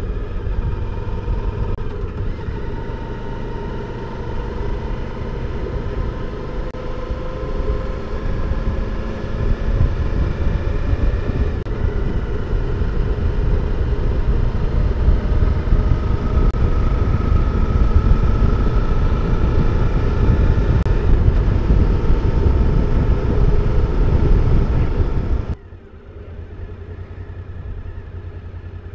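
Suzuki V-Strom DL1000's V-twin engine running on the move, under heavy wind rumble, its pitch slowly rising as the bike gathers speed. About three seconds before the end the level drops suddenly, and the engine goes on more quietly.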